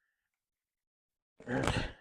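A nylon zip tie being pulled tight around a fork gaiter, one quick ratcheting zip through its lock about a second and a half in.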